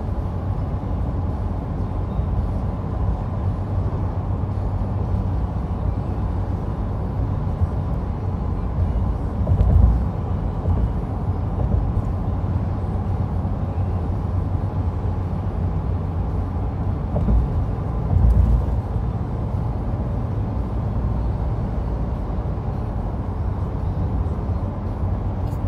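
Steady road and engine noise heard inside a vehicle's cabin at highway speed: a continuous low rumble, with two brief louder low surges about ten and eighteen seconds in.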